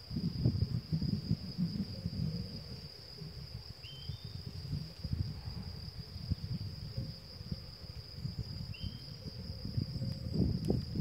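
A steady, high insect trill, with an uneven low rumble on the microphone, likely from wind or handling, that is louder than the trill. Two short rising chirps come about four and nine seconds in.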